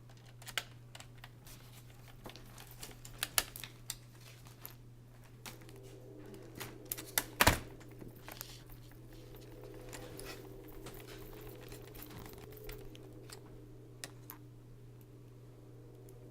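Irregular clicks and taps of small plastic and metal laptop parts and screws being handled during disassembly, with a sharper cluster of clicks about halfway through, over a steady low hum.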